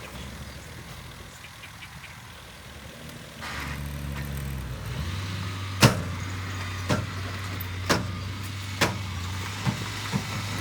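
Heavy-equipment diesel engine running, getting louder about three and a half seconds in and then holding a steady low drone. Six sharp metallic knocks come about once a second over the second half, the first the loudest.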